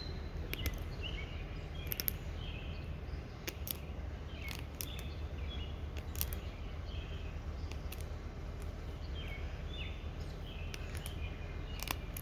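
Songbirds chirping in short calls over a steady low background rumble, with scattered sharp clicks.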